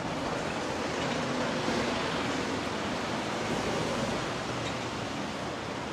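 Steady rushing noise of road traffic on a busy street, swelling slightly in the middle.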